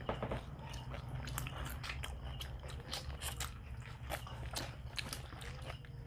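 Close-up chewing and biting into food, with irregular crisp crunches and mouth clicks, over a steady low hum.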